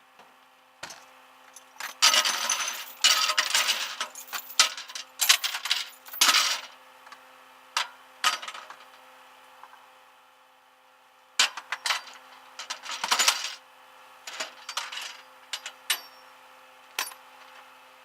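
Metal clinking and rattling in two bursts, one a couple of seconds in and another a little past the middle, with a few single clicks between, over a steady low hum.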